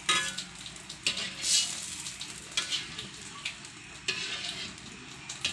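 Metal ladle stirring a wok of bubbling broth: several irregular scrapes against the pan over a steady hiss from the hot liquid.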